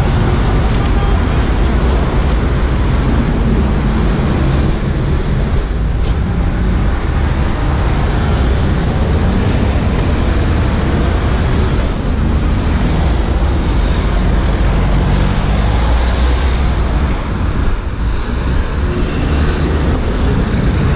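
Steady city road traffic noise, car engines and tyres, from a scooter riding among cars, with a heavy low rumble.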